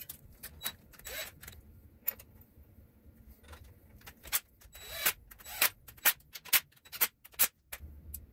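Small engine parts and tools being handled: a run of sharp clicks, taps and clatter, most frequent between about five and seven and a half seconds in.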